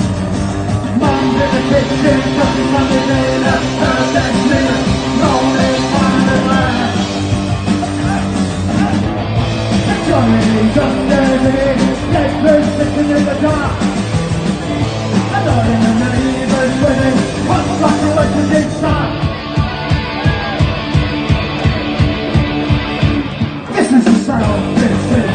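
Punk rock band playing an instrumental passage: electric guitar lines over bass and drums. The drumbeat becomes a fast, steady pulse in the last third.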